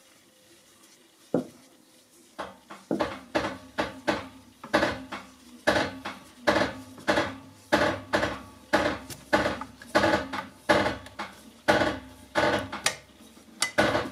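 Repeated sharp creaks, two or three a second, from the car's applied handbrake as the car is lowered on a scissor jack.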